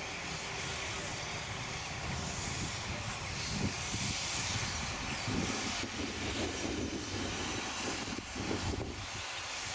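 A distant steam locomotive with its train, a steady hiss over a low rumble.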